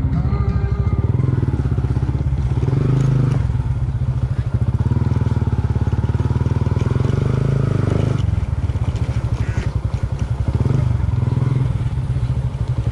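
Motorcycle engine running at low speed with a steady, fast putter, the tyres crunching over gravel.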